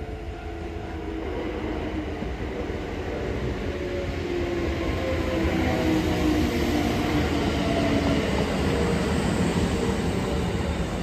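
Kintetsu 1240 series electric train pulling into the station and braking, wheels rumbling on the rails. Its motor whine falls in pitch as it slows, and the sound grows louder as the cars come alongside.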